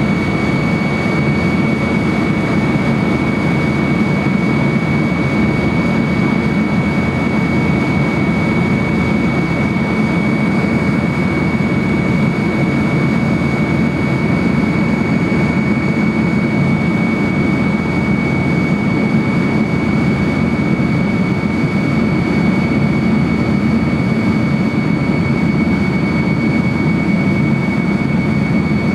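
Tupolev Tu-154B-2's Kuznetsov NK-8-2U turbofans heard from inside the cabin in flight after take-off: a loud, steady deep rumble of engine and airflow noise with a steady high whine laid over it.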